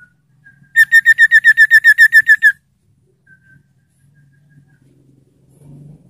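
Caged iora (sirtu) giving a loud, rapid run of about fifteen even whistled notes lasting nearly two seconds, with a few faint single whistles before and after.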